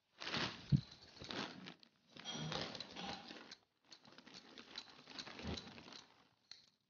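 Wooden rolling pin rolling out mathri dough on a board: three spells of rolling strokes, rubbing with light knocks, with short pauses between them.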